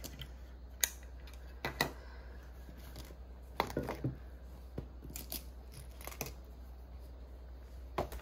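Study supplies and notebooks being set down and handled on a wooden desk: a scattered string of sharp taps and clicks, one every second or so, over a low steady hum.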